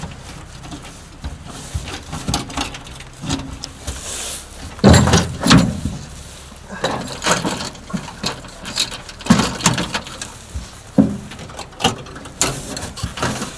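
Irregular clicks, clunks and rattles of a dirt bike being secured on an aluminium utility trailer with a Bike Binderz tie-down system: metal fittings knocking against the trailer deck and frame, loudest in a cluster of heavier knocks about five seconds in.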